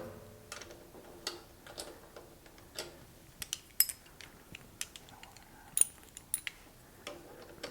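Sharp metallic clicks from a wrench working on a pit bike's rear axle bolt as it is tightened, irregular, one or two a second.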